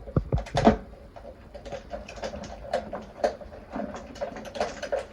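Small irregular clicks, taps and scrapes of hand work on wiring, with a few louder knocks about half a second in: the ground wire screw on an electric water heater's wiring connection being tightened and the wires handled.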